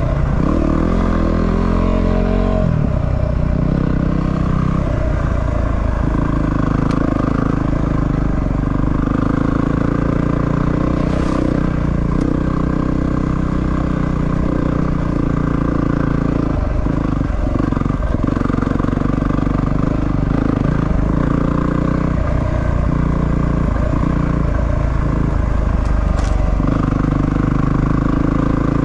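A 250cc single-cylinder dual-sport motorcycle engine being ridden on a dirt trail. Its revs fall over the first few seconds as it slows on engine braking, then it runs on with the revs rising and falling.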